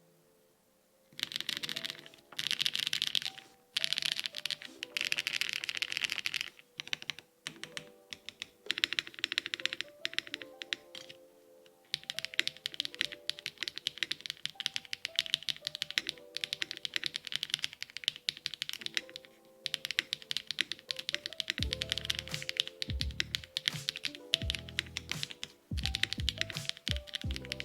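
Mechanical keyboard with LUMO×Akko mirror switches being typed on fast, in bursts of rapid key clicks with short pauses, starting about a second in.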